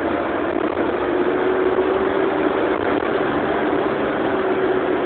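Diesel engine of a Mercedes-Benz OF-1620 bus running steadily, with a steady hum riding over the engine noise.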